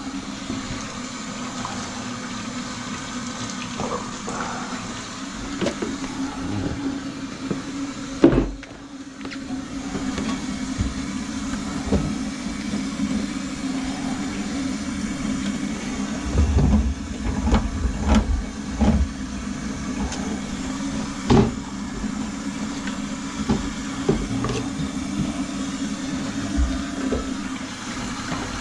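Electric drum drain-cleaning machine running with a steady hum while its cable is worked through a grease-clogged kitchen drain line. Scattered knocks and clanks come from the cable against the pipe, with a sharp knock about eight seconds in.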